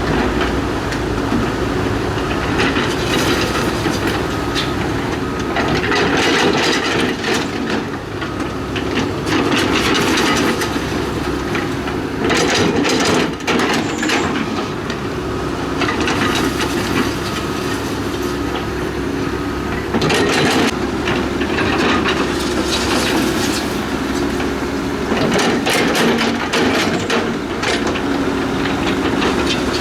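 Diesel engine of a tracked earthmover such as a crawler bulldozer or excavator running steadily under load, with the steel tracks clanking and clattering again and again.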